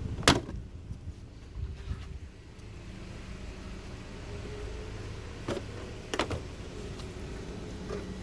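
Sharp plastic snaps of an engine-bay trim piece being unclipped by hand: one loud snap near the start and two more about five and six seconds in, over a steady low hum.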